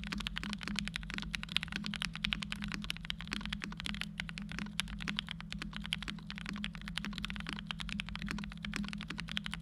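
Continuous fast typing on a Primus75 custom mechanical keyboard: NK Cream-housing frankenswitches with Hippo stems on a polycarbonate plate, GMK Dracula keycaps, and PE foam and plate foam mods. Closely spaced key clacks run without pause over a steady low hum.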